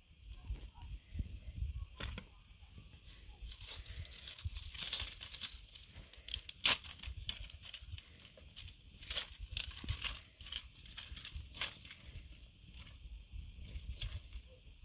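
Dry twigs snapping and crackling as they are broken by hand and fed into a small wood fire: an irregular run of sharp cracks, with the loudest snap about seven seconds in.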